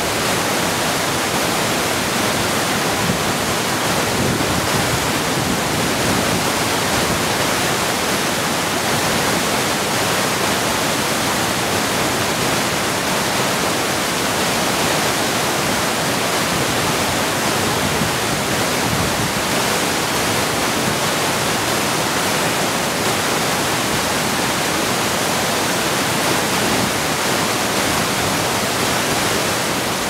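Whitewater cascades of a boulder-strewn mountain creek, rushing steadily and loudly without a break.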